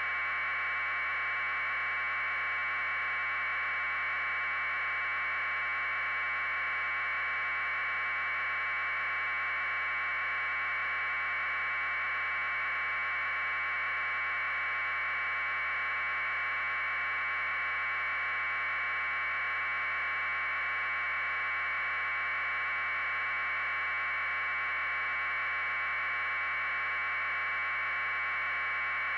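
Steady, unchanging static hiss held in a narrow middle band of pitch, with no rotor beat or other events in it.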